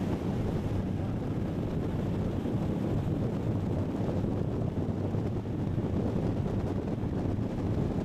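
Boat running at speed across open water: a steady rush of wind on the microphone and water rushing past the hull, over a low engine drone.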